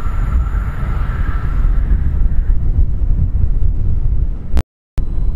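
ICE 4 (class 412) high-speed train running away into the distance, its steady whine fading out about two seconds in, over a loud low rumble of wind on the microphone. Near the end the sound cuts out completely for a moment.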